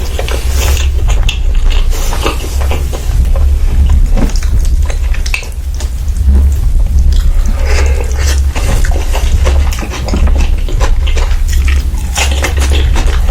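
Close-miked chewing and wet, saucy mouth sounds of someone eating, with many small clicks and smacks and occasional clinks of dishes.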